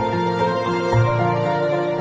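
Slow, soft instrumental background music of sustained notes over a low bass note that changes about a second in.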